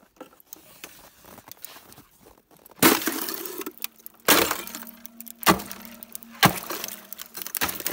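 Ice in a frozen-over stock-watering tub being broken with a long wooden-handled tool. Faint clinks of loose ice give way, about three seconds in, to five hard cracking strikes about a second apart.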